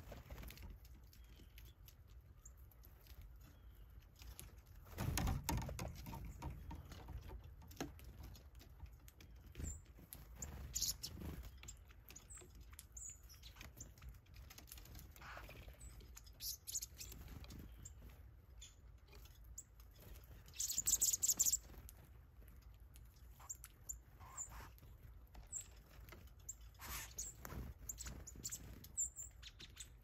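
Small birds at a hanging seed feeder: scattered short chirps and chip notes, wing flutters and light taps. There is a dull thump about five seconds in and a short rustling burst around twenty-one seconds.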